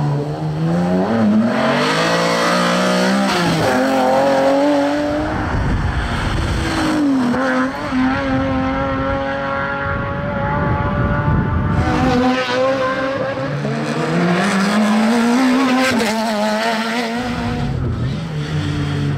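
Rally cars driven hard, several in turn: engines climbing in pitch through the gears, dropping each time they lift off, then revving up again several times.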